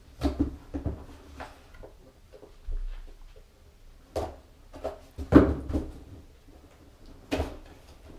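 A small package being handled and opened by hand: a series of irregular knocks, scrapes and rustles, the loudest about five seconds in.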